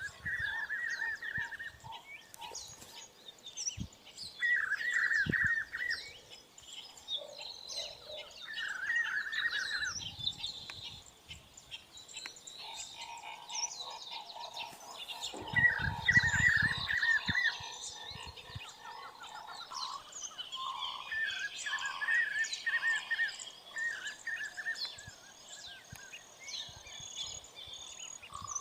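Repeated bouts of a rapid pulsed call, each about a second and a half long, recurring every few seconds among scattered higher chirps of other animals. A low rumble comes about halfway through.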